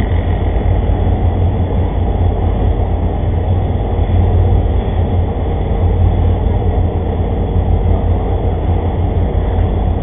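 Steady loud low rumble of a vehicle engine running, with no change in pitch or level.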